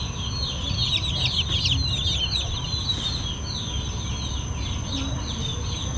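Young chickens peeping continuously: many short, high chirps overlapping without a break.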